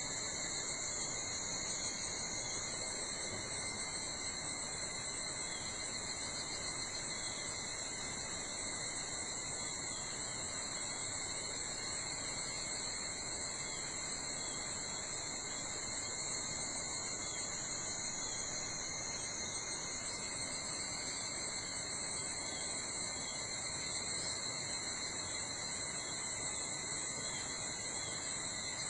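Steady chorus of insects, several kinds singing at different high pitches without a break, over a soft, even background hush.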